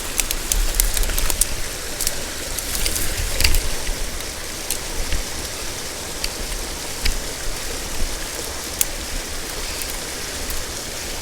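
Mountain stream water rushing steadily, with scattered sharp clicks and knocks, most of them in the first few seconds.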